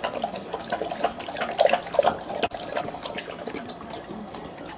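Bernese Mountain Dog lapping water from a bowl: a quick, irregular run of wet slurps, loudest in the middle, that stops after about three seconds.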